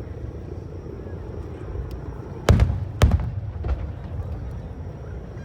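Aerial fireworks shells bursting: two loud booms about half a second apart, a fainter third soon after, over a low continuous rumble.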